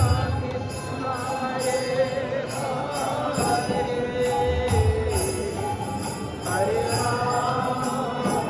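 Devotional kirtan: voices singing a slow, gliding melody over small hand cymbals (kartals) struck in a steady beat.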